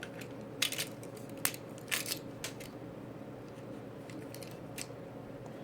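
A handful of short, sharp metallic clicks and taps, spaced irregularly, as the small metal parts of a door-lock key cylinder are handled and taken apart.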